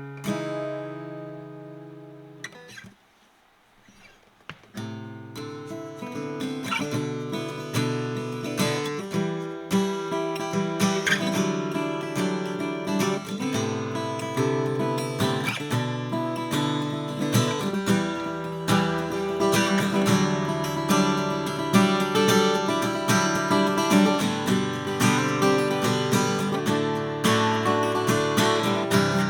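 A 1959 Gibson LG-2 flat-top acoustic guitar being played. A chord rings and fades, a short pause follows about three seconds in, and then steady strumming and picked notes continue.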